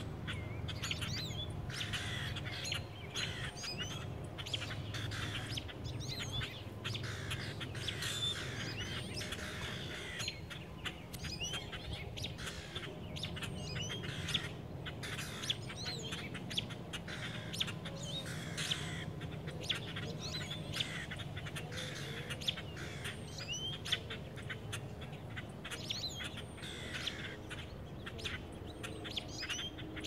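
Small birds chirping over and over in short, high calls, several overlapping, over a steady low hum.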